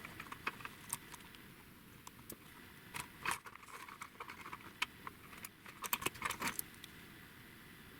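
Irregular light clicks and taps of small hard parts being handled, with a cluster of quick clicks near the middle and another shortly after.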